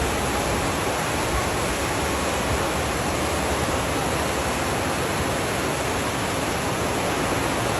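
Whitewater rapids rushing in a steady, even wash of noise.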